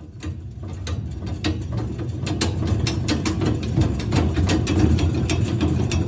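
Mechanical ratcheting clicks, irregular and several a second, over a steady low rumble: a gear-and-pawl mechanism turning.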